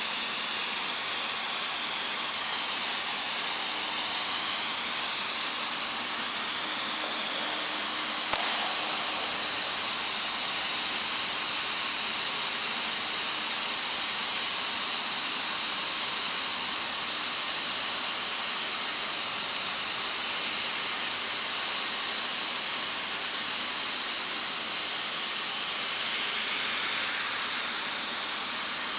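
Hot-air welding machine hissing steadily as it melts a welding rod into the seam of synthetic sports flooring.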